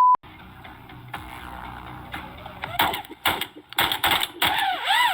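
A censor bleep cuts off right at the start, then a quick run of shotgun blasts, about five sharp shots within a second and a half starting near the middle.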